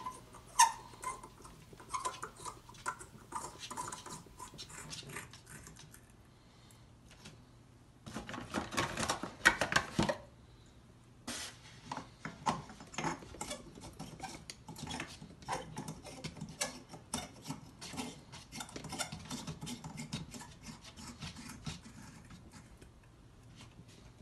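Light bulbs being screwed into a floor lamp's sockets: their threaded bases scrape and click in many small, irregular turns, with a denser stretch of scraping about eight to ten seconds in.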